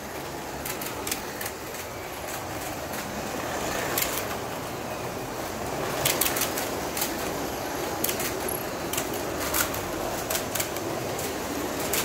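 1:24 scale slot cars running on a plastic track, a steady whir of their small electric motors and rolling wheels, rising and falling slightly as cars pass, with frequent sharp clicks scattered throughout.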